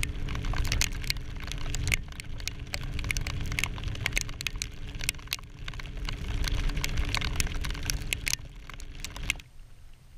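Rain drops tapping on a wet camera housing: many quick, irregular ticks over a steady low hum, both cutting off suddenly near the end.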